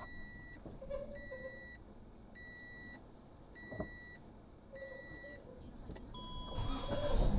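A car's warning chime beeping five times at an even pace, about once a second, as the ignition is switched on. Near the end a different chime sounds and the engine is cranked and starts with a sudden loud rush.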